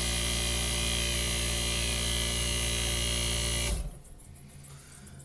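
Hermetic refrigeration compressor of a 1965 Fedders Weather Wheel air conditioner running with a steady electric hum after the thermostat kicked it on. It shuts off abruptly a little under four seconds in, leaving only a faint low sound.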